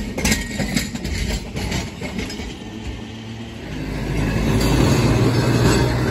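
Pittsburgh streetcars on museum track: first a car's wheels clicking sharply over rail joints as it moves away, fading out. About four seconds in, a second car, Pittsburgh Railways 4145, rolls by close with a louder steady low hum.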